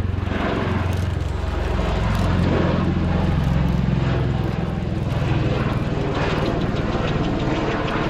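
Bell-Boeing CV-22B Osprey tiltrotor in flight: a loud, deep, steady drone from its proprotors and engines, with a fast even pulsing. It swells a little about two to four seconds in.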